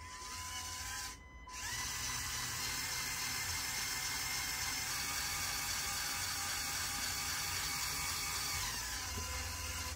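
Lego Technic 42042 Crawler Crane's small electric motor and plastic gear train whining steadily as it drives the winch that raises the opened grapple claw. It runs for about a second, stops briefly, then runs evenly for about seven seconds before stopping near the end.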